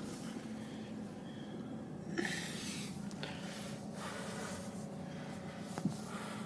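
Car cabin noise: a steady low engine and road hum while driving slowly, with a couple of light knocks.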